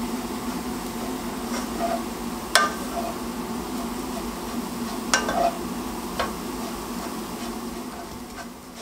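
A wooden spoon stirring shredded kadayıf pastry as it toasts in butter and sugar in a pan, a steady sizzle and scrape. The spoon knocks sharply against the pan a few times, loudest about two and a half and five seconds in.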